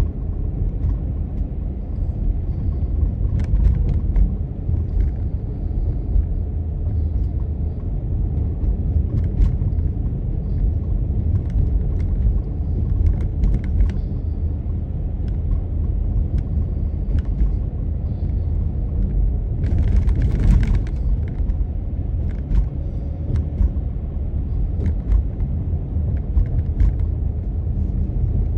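A car driving: a steady low rumble of engine and road noise, with scattered small clicks and knocks and a brief hiss about two-thirds of the way through.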